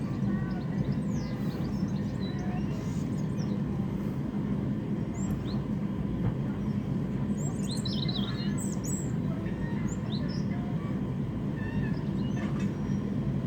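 Birds chirping in short, scattered calls, busiest about halfway through, over a steady low rumble.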